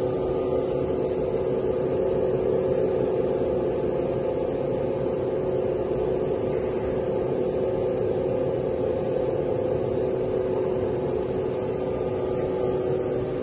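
Steton CL 1000 wide belt sander running, a steady mechanical hum with two steady mid-pitched tones.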